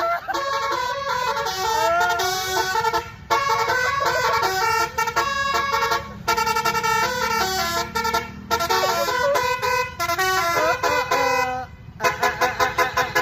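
Tour bus's telolet horn, a set of multi-tone musical horns, playing a melody of stepped notes in short phrases with brief breaks between them. Near the end it sounds a quick run of short staccato blasts, and a low engine rumble runs underneath.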